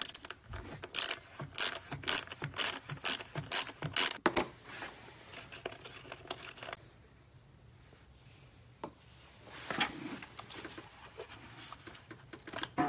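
Hand ratchet clicking as it unscrews the 10 mm ignition coil bolt, a quick run of clicks for about four seconds. Fainter handling sounds follow, with a knock near the end.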